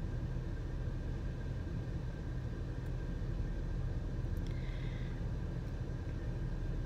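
Steady low rumble of a van's idling engine, heard from inside the cabin.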